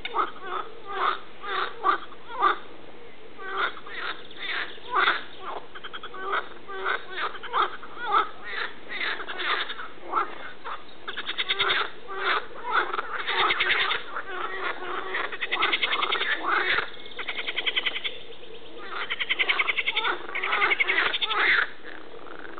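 Frogs calling from a pond, one croak after another, with several voices overlapping. Short croaks come about once or twice a second at first; from about halfway they give way to longer rattling calls of one to three seconds each.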